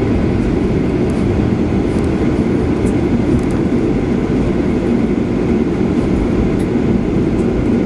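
Boeing 737-800 cabin noise as the airliner rolls along the runway just after landing: a steady low rumble of engines and wheels.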